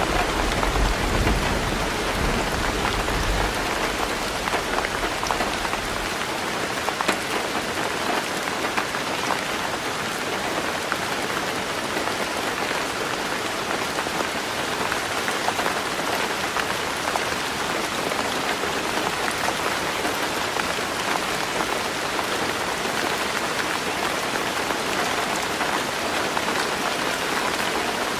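Heavy rain falling steadily on a roof, a dense even patter with scattered sharper drops. A low rumble dies away about six seconds in.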